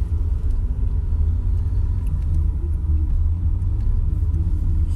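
Steady low rumble of a Jeep Wrangler's engine and tyres, heard inside the cabin while it drives through a snowy lot.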